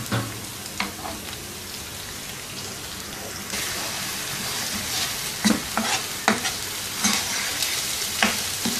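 Onion and ginger-garlic paste sizzling in hot oil in a nonstick frying pan, with a spatula scraping and tapping against the pan several times as it stirs. The sizzle gets louder about three and a half seconds in, as the paste is spread across the pan.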